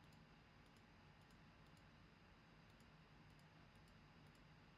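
Near silence: faint room tone with about ten light, irregular clicks of a computer mouse.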